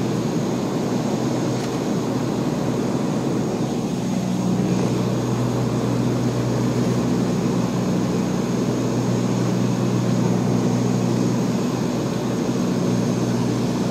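Cabin noise of a propeller aircraft in flight: the engines and spinning propeller make a steady hum with a hiss of airflow, unchanging throughout.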